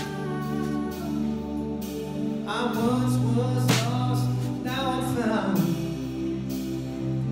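Live worship band playing a slow song: sustained keyboard and acoustic guitar chords under a sung melody, with drum-kit cymbal strikes near the start and about halfway through.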